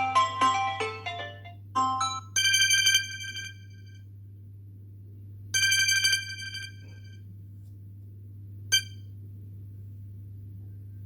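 Samsung Galaxy S10 ringtone and notification tones. A marimba-like ringtone melody ends about two seconds in. A bright electronic notification tone then rings for about a second and plays again about three seconds later, and a short blip comes near the end.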